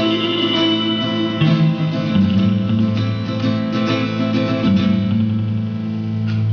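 Live band playing an instrumental passage of guitar music, with strummed guitar chords held and changing every second or so.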